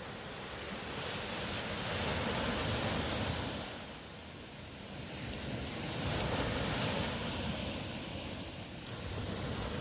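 Ocean surf washing ashore, rising and falling in two slow swells.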